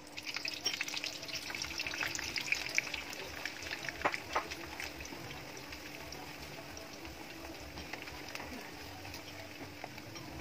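Cubes of tofu frying in shallow oil in a ceramic frying pan: a crackling sizzle, busiest in the first few seconds as the pieces go in, then settling to a steadier fizz. Two sharp clicks about four seconds in.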